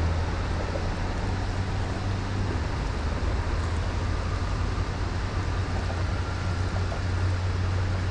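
Steady rush of water from the dam spillway, with a steady low hum underneath.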